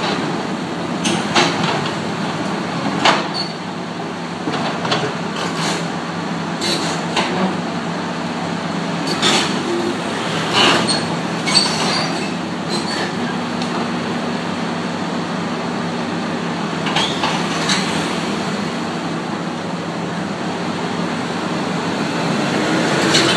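Excavator's diesel engine running steadily, with scattered short knocks and clanks, typical of its steel tracks and machinery shifting during loading onto the truck.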